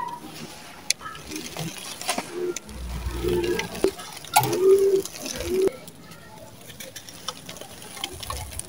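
Dry, crumbly sand-cement chunks crushed in the hands, gritty crackling with sand and small lumps pattering and trickling down into a bowl. It is busiest in the first half and thins to a lighter trickle near the end.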